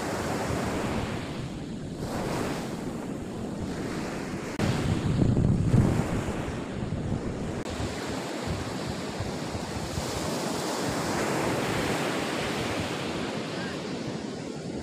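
Ocean surf breaking and washing up a sandy beach, with wind blowing across the microphone. It swells louder for a second or so about five seconds in.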